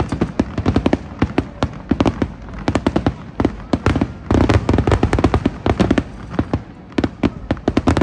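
Fireworks going off in rapid, irregular sharp bangs and crackles, several a second, densest about four to five seconds in.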